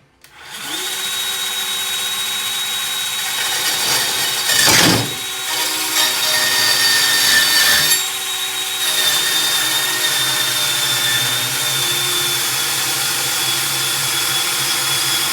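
Bosch 18V BSH180 cordless portable bandsaw starting up and running with a steady whine while its blade cuts through a piece of old metal shelving. The cut grows louder and rougher for a moment about five seconds in.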